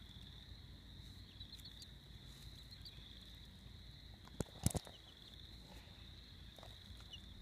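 Steady high-pitched insect trill, with a couple of sharp clicks about four and a half seconds in.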